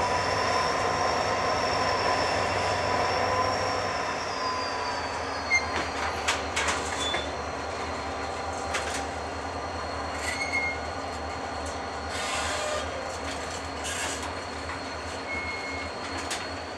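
Freight train of tank wagons rolling past, a steady high wheel squeal for the first few seconds, then rolling noise with scattered clicks and knocks from the wheels over the rail joints.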